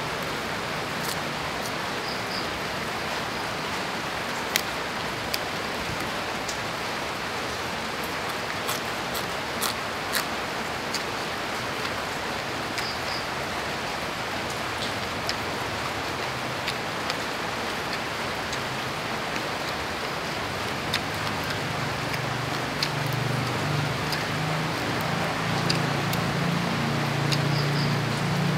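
Steady rain hiss with scattered sharp little clicks. From about three-quarters of the way in, a low engine hum rises and holds.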